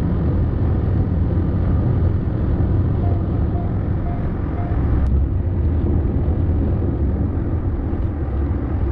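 Steady road noise heard from inside a car driving at highway speed: a deep, even rumble of tyres and engine, with one sharp click about five seconds in.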